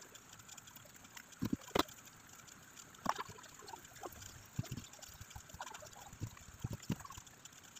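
Faint, scattered clicks and taps as a CRT TV's circuit board and its wiring are handled and moved about, with a few sharper clicks among them.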